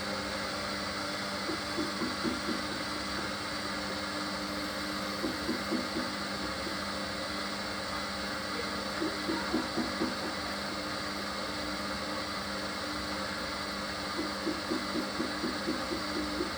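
Hoover HLW585DC washer-dryer drum turning slowly between spin attempts: a steady motor hum, broken every few seconds by short bursts of rapid pulsing. The machine is trying to balance a full, unbalanced load before it spins.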